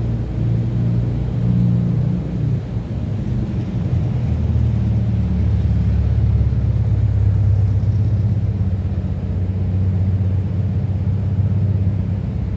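Classic Volkswagen Beetle's air-cooled flat-four engine running as the car pulls away and drives past at low speed: a steady low rumble, loudest from about four seconds in until near the end.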